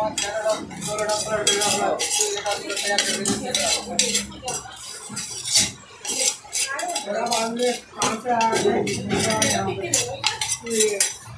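A flat metal blade scraping thick set curd off a terracotta dish into a steel pot: repeated scrapes, with knocks and clinks against the dish and the pot.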